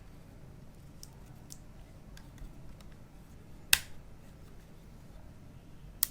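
Two sharp clicks from a Canon M50 camera being handled, about two seconds apart, the first the louder, with a few faint ticks between.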